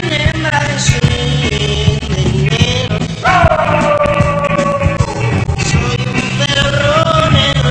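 Loud rock music: electric guitar over a steady bass and drum beat, with a sliding melodic line above.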